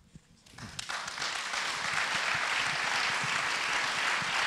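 Audience applause, starting about half a second in and building within a second into steady clapping.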